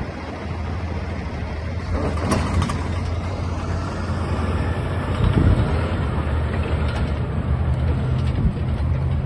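The Cummins ISX15 diesel engine of a 2016 International 9900i truck tractor running as the truck pulls away over gravel, its low steady drone growing louder as it drives off.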